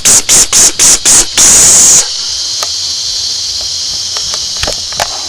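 Aerosol wasp-killer spray hissing in about six short quick bursts, then one longer burst that cuts off about two seconds in. After it a steady high hiss, likely night insects, runs on with a few faint clicks.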